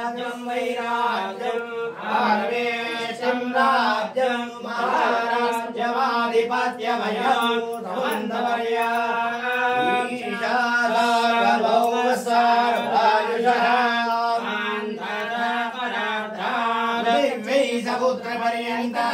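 Devotional chanting of a Hindu hymn to Shiva: voices chanting continuously over a steady held drone note.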